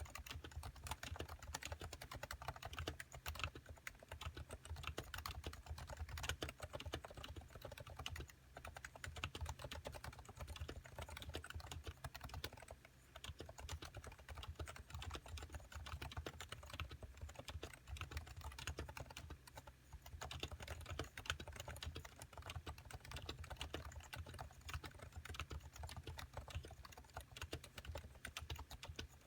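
Continuous fast typing on a Topre Realforce 87U keyboard with factory-silenced Type-S 45 g switches: a dense, unbroken stream of soft, muted key presses.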